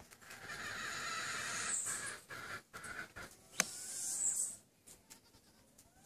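Goats fighting: a harsh, raspy animal call for the first few seconds, then a single sharp clack about three and a half seconds in, as when the horns strike.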